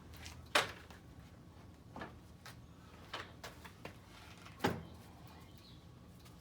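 Scattered knocks and taps of lumber and tools being handled on a work surface, two louder knocks about half a second in and about two-thirds of the way through, over a low steady hum.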